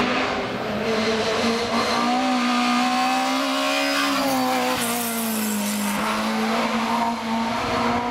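Opel Schneider Corsa 16V hill-climb car's 16-valve four-cylinder engine running hard at high revs. Its note climbs in pitch and then falls away, loud throughout.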